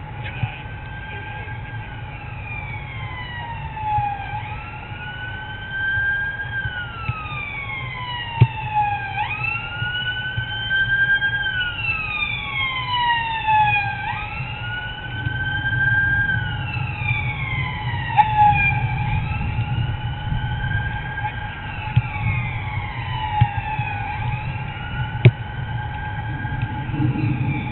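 Emergency vehicle siren wailing, its pitch rising quickly and then falling slowly in cycles of about five seconds, with a second siren sweeping down over it. A few sharp knocks stand out above a steady low rumble.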